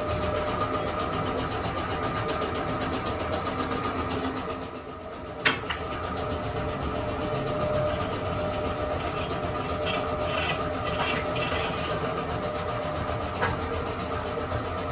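Lathe running steadily with a constant mechanical hum. It dips briefly, then gives a sharp metallic click about five and a half seconds in, a few short scraping bursts around ten seconds, and another click near the end.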